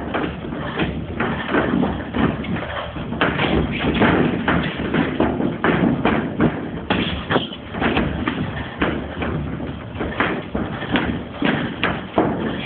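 Sparring: gloved strikes landing in quick, irregular runs of thuds and smacks, several a second at times.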